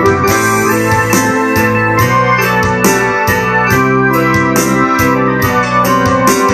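Ensoniq SD-1 synthesizer played live in a rock keyboard part: sustained chords with sharp note attacks, changing about every half second to a second.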